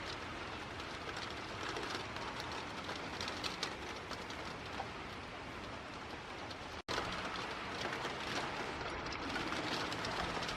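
Steady rain falling and pattering, with a brief break in the sound about seven seconds in.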